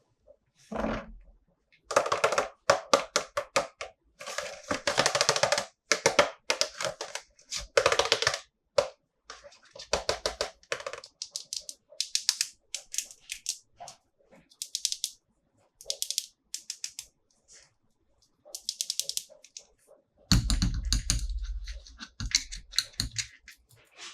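Hands handling plastic toy packaging and figures: bursts of rapid crackling and clicking with short pauses between them, and heavier, duller handling sounds near the end.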